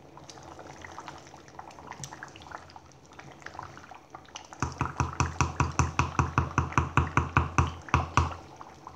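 Wooden spoon stirring thick, simmering pepper sauce in a metal pot. At first there is soft bubbling and scraping. About halfway in, a fast, even run of strokes begins, about seven a second, and lasts some three and a half seconds.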